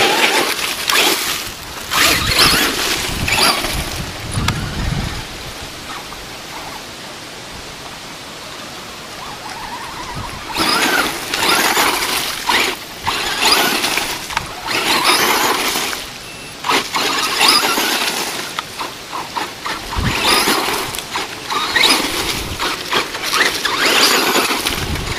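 Traxxas Stampede 2WD electric RC truck with a brushless motor driving over loose gravel and dry leaves in bursts of throttle, its tires crunching and spinning through the stones. There is a lull of about six seconds in the first half.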